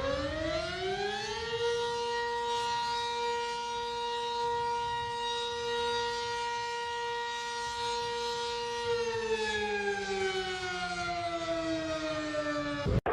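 Emergency alert siren wailing: its pitch rises over the first second and a half, holds steady for about seven seconds, then slowly falls until it cuts off abruptly near the end.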